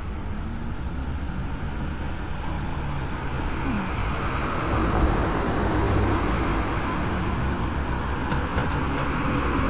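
Street traffic noise picked up by a body-worn camera while walking: a steady rushing hum with a low rumble that grows louder about halfway through, as a car passes.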